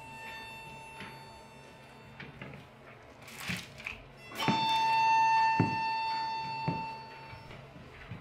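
A high violin note held steady, with a faint version of the same pitch at the start. About halfway it comes in loud with a knock and is held for about three seconds, with a few soft thuds under it. Just before it there is a short rustle of paper.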